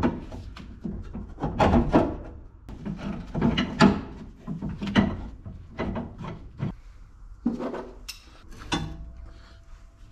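Series of metal knocks and scrapes as a laser-cut steel suspension bracket is pushed into position against the van's chassis rail and a clamp is fitted to hold it.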